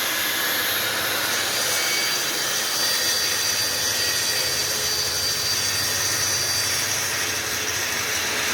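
Festool TS 55 plunge-cut track saw running at full speed through a cut in sheet material, a steady loud whine with high tones that holds even throughout.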